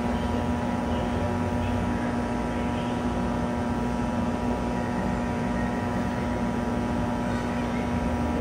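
Cotton candy vending machine running, its spinning head and motor giving a steady mechanical hum while floss is spun onto the stick.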